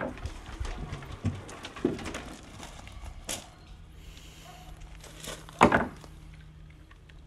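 Armored Teck cable being handled while its black plastic outer jacket is pulled off: scattered rustles and knocks of the jacket and metal armor, the loudest about five and a half seconds in.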